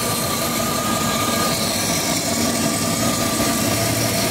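A 2001 Bentley Arnage Red Label's 6.75-litre turbocharged V8 idling steadily with the bonnet up, running really smooth.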